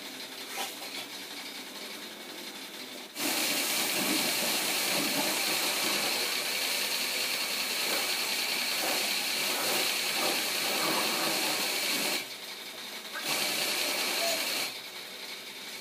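A high-pressure car-wash jet hissing as it sprays water onto a car. It starts about three seconds in, stops around twelve seconds, then gives one more short spray before stopping near the end. A steady high whine runs underneath throughout.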